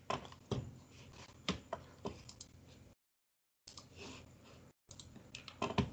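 Scattered clicks of a computer keyboard heard over a video-call line, the sound dropping out to dead silence for a moment about three seconds in.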